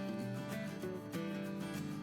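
Background music with held notes and plucked guitar tones.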